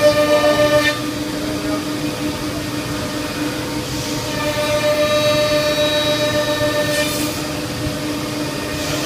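Twin spindles of a C.R. Onsrud Panel Pro CNC router running with a steady high whine. A brighter, louder set of higher tones swells in the first second and again from about four and a half to seven seconds in.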